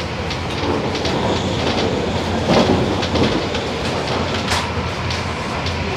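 Hong Kong MTR subway train running: a steady rumble with wheel clatter, and a few sharper knocks about two and a half, three and four and a half seconds in.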